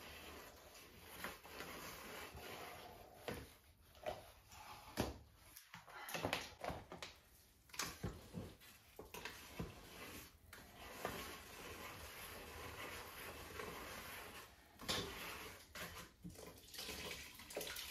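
Wet glaze slurry sloshing and splashing in a bucket as it is mixed, with a few light knocks scattered through.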